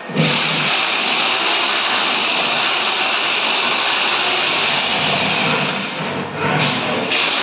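Corded electric drill running steadily at full speed as a screw is driven through a PVC wall panel into the wall. It stops briefly about six seconds in and starts up again.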